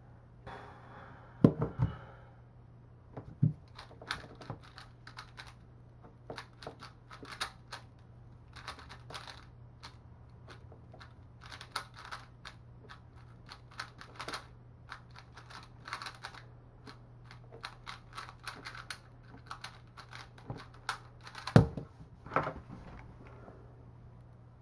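Valk Mini 3x3 speedcube being turned by hand: a long run of quick plastic clicks, with a few louder knocks near the start and near the end.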